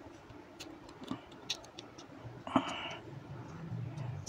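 Faint clicks and ticks of a neckband earphone's plastic housing being pried apart with a small tool as its glued joint gives way, with one short, louder crackle about two and a half seconds in.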